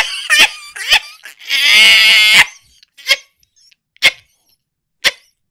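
A person's voice reacting with short broken vocal noises, then a drawn-out high wail about a second and a half in, followed by three short sharp yelps about a second apart.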